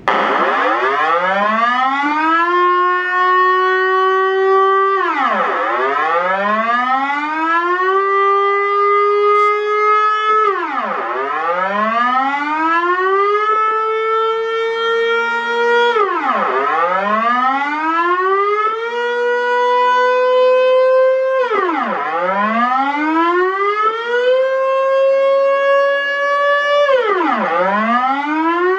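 Dutch civil-defence air-raid siren sounding its warning wail. A loud tone climbs over about five seconds, then drops sharply, and starts climbing again, about every five and a half seconds.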